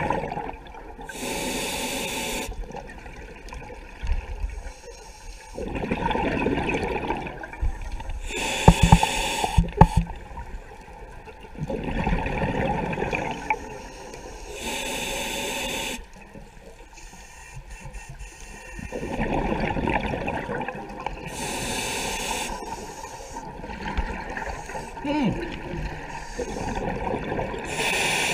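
Scuba diver breathing underwater through a regulator: a short hiss on each inhale and a longer rush of bubbles on each exhale, the cycle repeating about every six to seven seconds.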